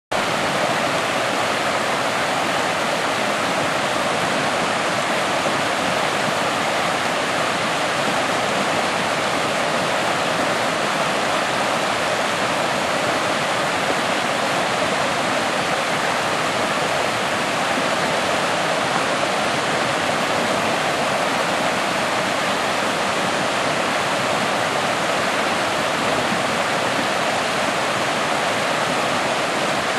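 Swift stream running high after rain, rushing and splashing over granite boulders in a steady, even roar of water.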